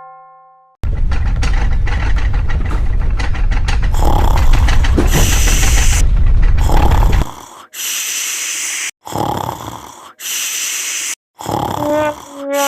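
Cartoon snoring sound effect: a loud, low, rattling snore lasting about six seconds, then a series of shorter hissing breaths about one a second. Near the end a pitched brass-like musical note comes in.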